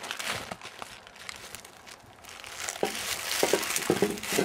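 Plastic bubble wrap crinkling and rustling as it is handled around a throttle body, louder from a little over halfway through.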